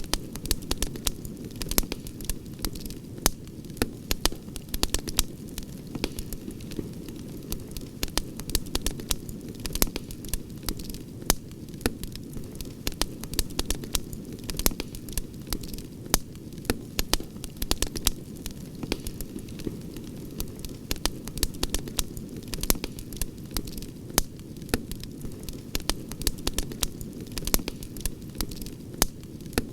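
Campfire crackling: frequent sharp pops and snaps, several a second, over a steady low rush of the flames.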